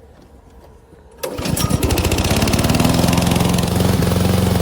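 Remote-control lawn mower's petrol engine pull-started: it catches about a second in, its pitch climbs briefly, then it runs steadily.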